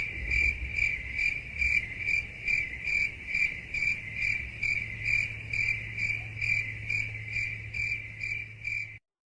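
Cricket chirping steadily, a little over two chirps a second: the classic 'awkward silence' crickets sound effect. It stops abruptly near the end.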